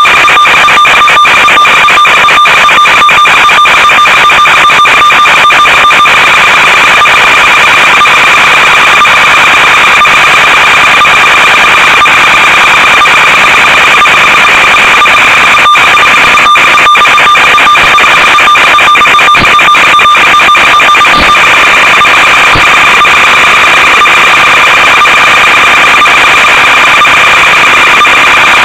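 Loud, steady radio static with a constant buzzing tone, crackling with clicks in the first few seconds and again around the middle. It is the noise of the audio channel on an analog FPV video link, recorded with the video feed.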